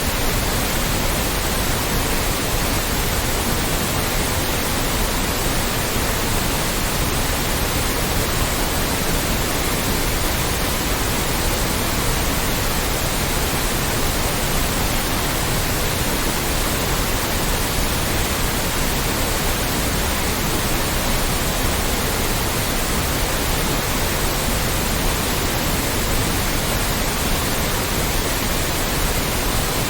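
Loud, steady white noise: an even hiss spread across low and high pitches alike, unchanging throughout.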